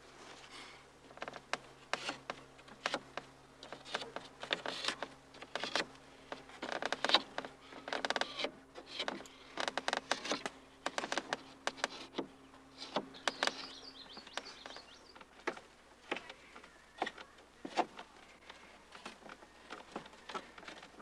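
Wooden slats of a canoe frame clicking and knocking irregularly as hands handle and press them into place, over a faint steady low hum.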